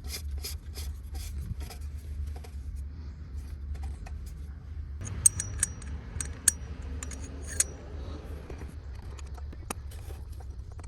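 Oil filter housing cap being screwed on by hand: a run of light clicks and taps, then, about five seconds in, scraping and rubbing with a few sharp clicks that lasts a few seconds.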